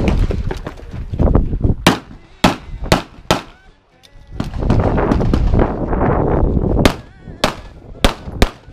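Pistol shots fired in quick strings during a USPSA Production-division stage: four shots about half a second apart around two seconds in, then a stretch of low rumbling noise while the shooter moves to the next position, then five more rapid shots near the end.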